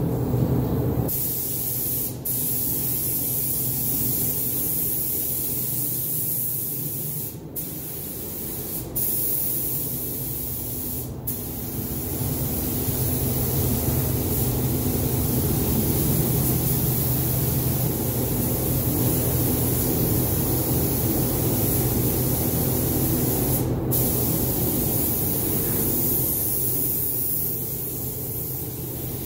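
Gravity-feed paint spray gun hissing steadily as compressed air atomises paint onto sheet-metal panels. The hiss breaks off for an instant a few times between passes.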